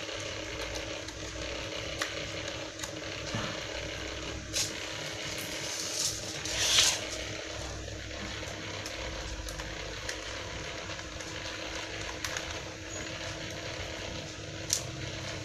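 Small screwdriver unscrewing screws from an Acer E5-471 laptop's plastic bottom case: scattered light clicks and a short scraping rustle about seven seconds in, over a steady hum.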